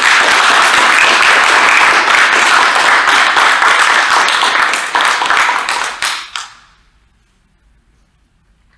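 Small audience applauding, many hands clapping at once, dying away about six seconds in.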